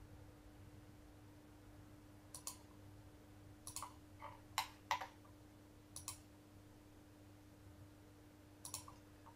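Computer mouse buttons clicking, a press-and-release pair at a time, about seven times at uneven intervals as nodes are picked and dragged, loudest a little past halfway, over a faint steady hum.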